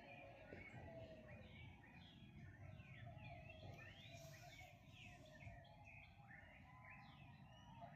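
Faint morning chorus of several birds: many quick chirps sliding downward, overlapping one another, with a lower warbling call underneath.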